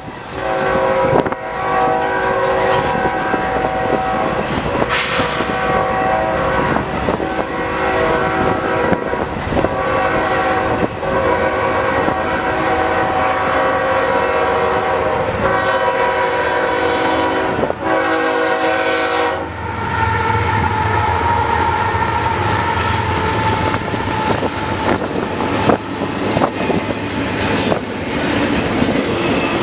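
A freight locomotive's multi-chime air horn blows a series of long blasts with short breaks for about twenty seconds. Then the horn stops, and the train's cars roll past with a steady rumble and a high steady tone.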